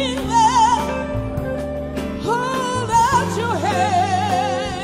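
Gospel song: a vocalist sings long held, wordless notes with wide vibrato and sliding pitch over sustained band accompaniment.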